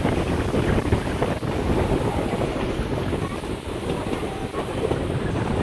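Steady rushing noise on an open train car: wind buffeting the microphone over the running noise of the train on its rails and the rush of whitewater rapids in a swollen river alongside.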